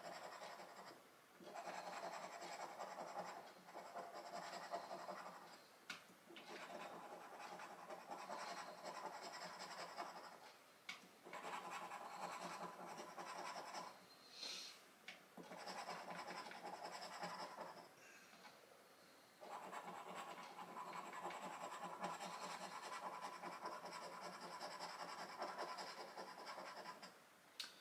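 Scratchcard panels being scratched off in runs of a few seconds each, with short pauses between them.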